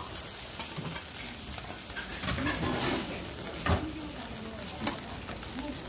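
Beaten egg sizzling on a flat iron griddle while a metal spatula scrapes and spreads it, with a few short clicks from the spatula.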